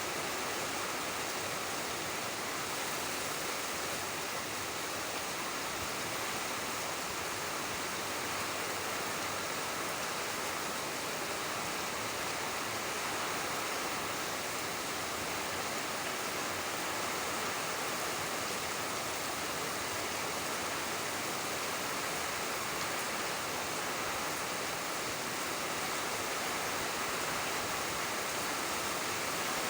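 Steady rainfall, a dense even hiss with no separate drops or other events standing out.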